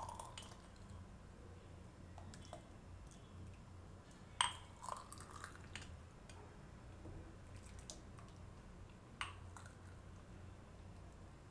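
A steel ladle scooping hot milk from a steel pan and pouring it into a glass mug, with soft pouring and dripping. The ladle clinks against the pan or glass, sharpest about four seconds and nine seconds in, over a low steady hum.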